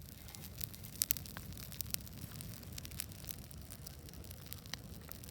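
Wood bonfire crackling, with irregular sharp pops, the loudest about a second in, over a low steady rumble.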